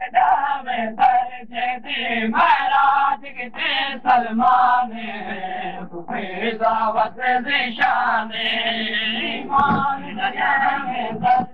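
Men's voices chanting a noha, a Shia mourning lament sung in Saraiki, in long sung phrases that bend in pitch and pause briefly between lines.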